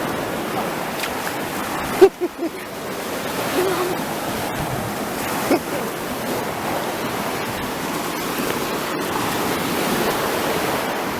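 Sea surf washing on the shore in a steady rush, with a sharp thump about two seconds in, followed quickly by two smaller ones.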